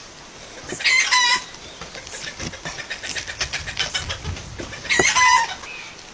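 A chicken calling twice, each call about half a second long, about a second in and again about five seconds in. Faint crackling of cabbage leaves being handled on a wooden board lies between the calls.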